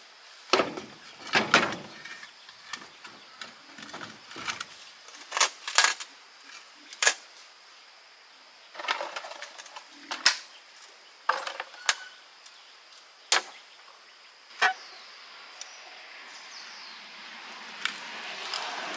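Metal tools and gearbox parts being handled: irregular sharp clinks and knocks, some loud, with pauses between them. A steady hiss builds up near the end.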